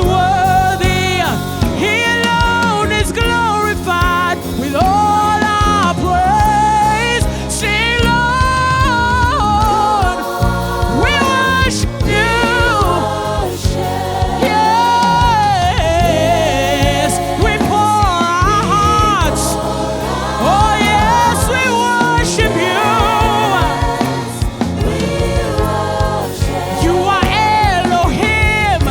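Gospel worship song: voices singing a slow, held melody with vibrato over steady instrumental accompaniment.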